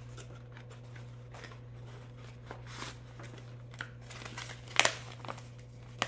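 Light cardboard box flaps being opened and a folded paper insert card pulled out and unfolded: scattered rustling and crinkling, with a sharper rustle just before the end, over a steady low hum.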